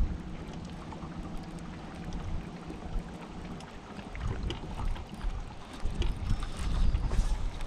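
Wind buffeting the microphone and water lapping at a fishing boat's hull, with scattered small clicks. A steady low hum runs under it and stops a little over halfway through.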